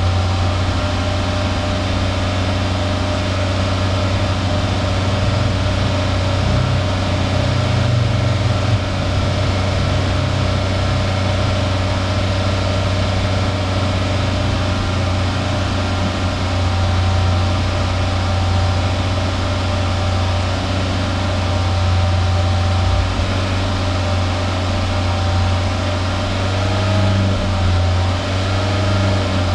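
Exhaust of a 1.3-litre Toyota 2SZ-FE inline-four engine running at a steady idle, heard at the tailpipe with a deep even hum. It is running just after a WAKO'S RECS intake-cleaner treatment, still burning off the cleaner in heavy white exhaust smoke.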